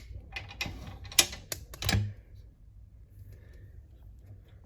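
A door's lock and latch being worked to open it: about half a dozen sharp metallic clicks and knocks over two seconds, then quiet.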